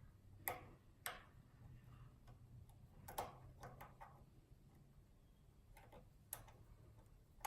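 Scattered faint metallic clicks of a lock pick working the pin stacks of a Schlage pin-tumbler cylinder under tension, the pins setting one by one as it is picked back into a false set.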